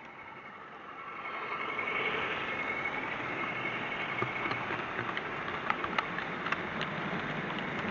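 Model train running along the track, heard from a camera riding on a wagon: a steady rumble and whine that grows louder about a second in, with several sharp clicks in the second half.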